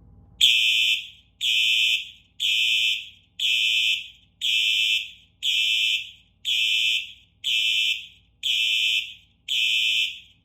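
Two Simplex 4903-series electronic fire alarm horns (4903-9236 and 4903-9241) sounding together in the pulse pattern: a high-pitched electronic tone about half a second long, repeating about once a second. It starts just under half a second in.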